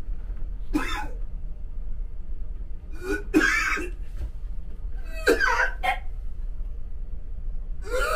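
A man retching and gagging over a toilet from seasickness, in about four harsh heaves a couple of seconds apart.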